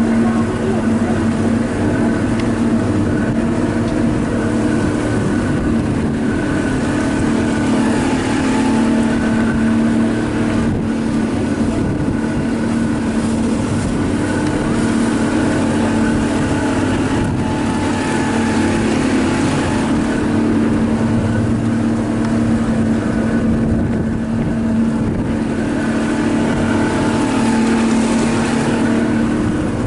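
Motor launch's engine running steadily at cruising speed, a constant even drone with the rush of water along the hull.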